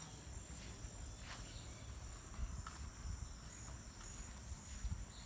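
Insects chirring in a steady high-pitched drone, with a low rumble underneath.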